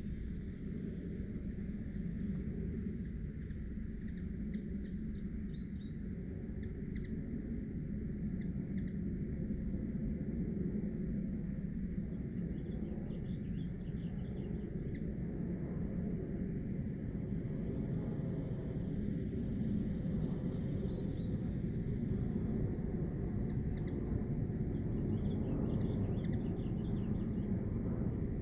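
Insects trilling: a steady, high, fast-pulsing trill over a low steady rumble. Three times, about nine seconds apart, a high thin note sounds for about two seconds, with faint chips around it.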